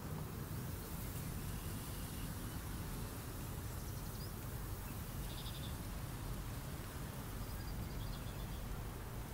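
Steady low wind rumble on the microphone over choppy water, with a faint, brief animal call about five seconds in.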